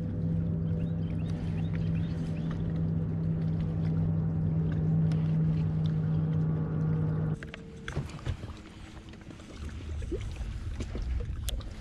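Bow-mounted electric trolling motor running with a steady hum that cuts off abruptly about seven seconds in. Faint wind and water noise and a few light clicks follow.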